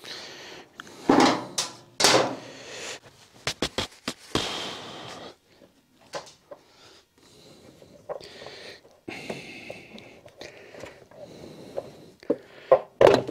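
Hands and tools working on a Vespa scooter's engine covers: a string of sharp knocks and clicks, with quieter scraping and rattling between them.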